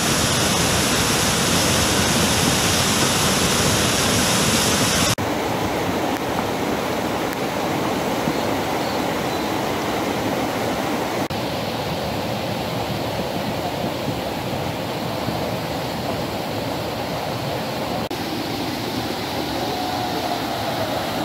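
Lahar, a fast flood of volcanic mud carrying ash, sand and stones, rushing as a steady torrent of water noise. About five seconds in the sound changes abruptly and becomes a little quieter and duller.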